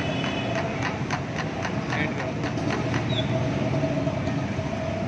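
Busy street ambience: steady engine and traffic noise with a constant hum, background voices and scattered short clicks.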